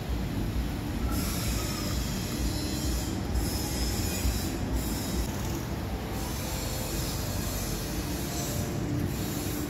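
Aluminium foil crinkling and rustling in stretches as it is wrapped and pressed around a plastic part, starting about a second in and breaking off briefly a few times, over a steady low rumble.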